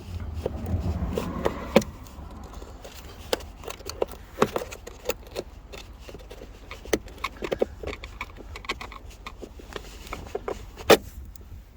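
Scattered sharp clicks and knocks of hand tools and parts being handled while working on a Honda Accord's door lock, the loudest knock near the end, over a low rumble of passing traffic that is strongest in the first couple of seconds.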